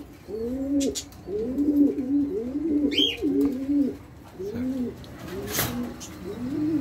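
Several domestic pigeons cooing, with low arching coos overlapping one another throughout. There is a short high chirp about three seconds in, and a sharp click a little later.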